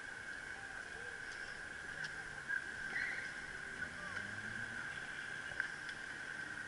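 Riding noise from within a group bicycle ride: a steady high whine over a light rushing background, with faint distant voices and a few small ticks.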